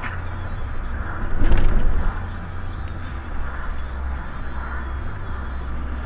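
Car road noise heard from inside the cabin: a steady low rumble, with a brief louder thump about one and a half seconds in as the tyres cross the railway level-crossing tracks.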